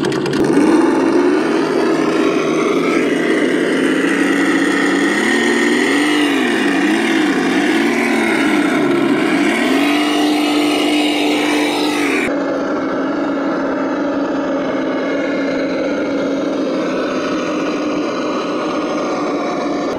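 Simulated V8 engine sound from a scale RC 4x4 crawler, steady at first. From about six seconds in, the pitch dips and climbs back three times. A sudden change near twelve seconds leaves it running steadily.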